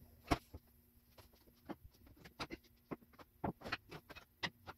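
Scattered light knocks and clicks of someone moving about and handling things at a car, the sharpest about a third of a second in, over a faint steady hum.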